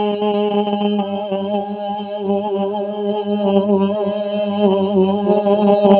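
Male naat reciter singing a long, wordless, ornamented note into a microphone, its pitch wavering in vibrato from about a second in, over a steady low tone.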